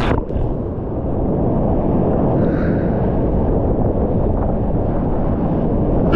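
Big whitewater rapid rushing and crashing around a kayak as it paddles through the holes: a loud, steady, deep roar of water, muffled with little treble.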